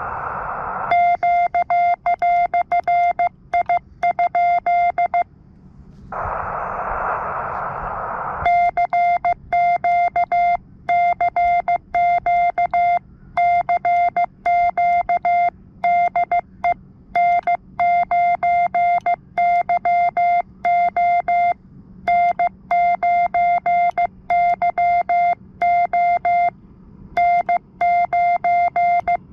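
Morse code (CW) sidetone beeping from a QRP transceiver as the operator keys a CQ call: one steady mid-pitched tone switched rapidly on and off in dots and dashes. At the start and again about six seconds in, the keying pauses and receiver hiss comes through instead.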